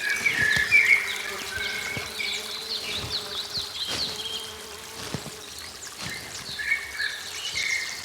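Forest ambience: many short, quick high-pitched bird chirps and a few lower warbled notes, over a faint steady insect-like buzz and trickling water.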